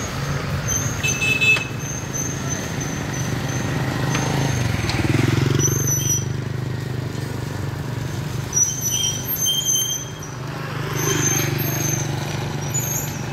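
Road traffic passing close by, with vehicles swelling past about five seconds in and again near eleven seconds, over a steady low hum.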